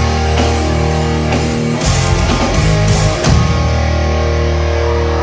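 Live rock band, heard from the crowd, playing loud distorted electric guitars, bass and drums. The drum hits stop about three and a half seconds in, leaving a held chord ringing on.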